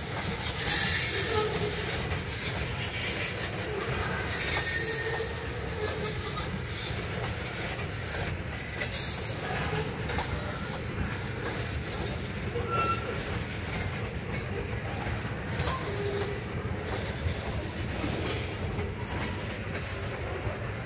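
Loaded tank cars of a freight train rolling past: a steady low rumble of steel wheels on the rails, with short high screeches from the wheels about a second in, around four and a half seconds, and near nine seconds.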